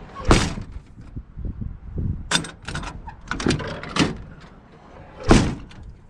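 Steel cab door of a 1983 Kenworth K100 cabover slammed shut twice, about five seconds apart, with smaller latch clicks and knocks in between. The rotary door latch is not catching reliably: it worked one time, then would not hold again.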